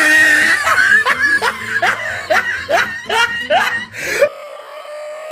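Laughter: a run of short, repeated 'ha-ha' bursts, about two to three a second, breaking off suddenly near the end.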